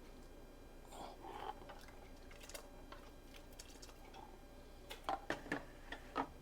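Soup being dished out: faint liquid sounds with scattered sharp clinks of a utensil against dishware, the loudest cluster of clinks about five to six seconds in.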